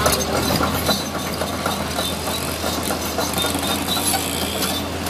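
Sany SY215C crawler excavator's diesel engine running steadily while its steel tracks clank and clatter over gravel as the machine swings and moves.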